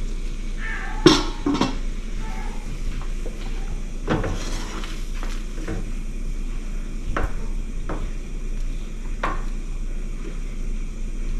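Kitchen utensil clatter: a sharp clack about a second in as a plastic cutting board is set down on a stainless steel bowl, then a wooden spoon stirring cream sauce in a skillet. The spoon knocks against the pan every second or two.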